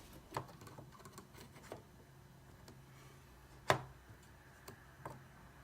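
Scattered small clicks and taps from computer parts being handled while a RAM module is fitted to a motherboard, with one sharper click a little past the middle.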